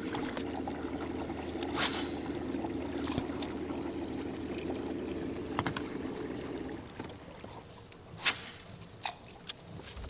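A small boat motor running steadily, then cutting off about seven seconds in. Two brief whooshes, about two seconds in and again about eight seconds in.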